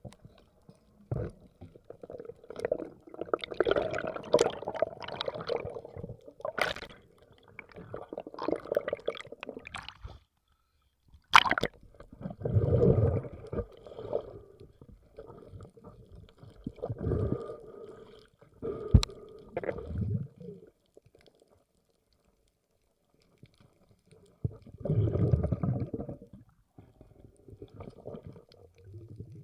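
Water gurgling and sloshing around the microphone of a waterproof camera, in uneven bursts of a second or few with silent gaps between them.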